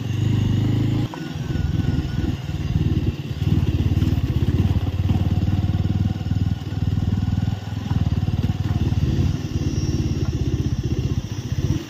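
A Bajaj Avenger 220 Street's single-cylinder engine runs at low road speed, its loudness rising and easing as the throttle is worked over a rough gravel track.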